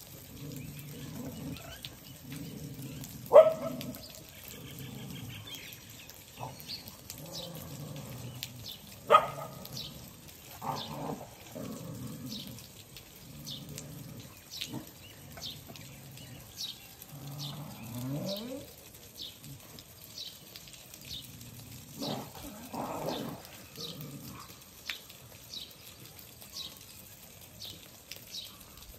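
Dogs fighting: low growling and snarling runs on, broken by sharp yelps, the two loudest about three and nine seconds in.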